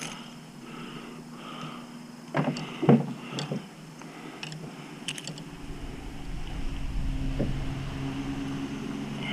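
A few hollow knocks and thumps against a kayak, then a steady low motor drone that swells from about halfway through, typical of a motorboat passing on the river.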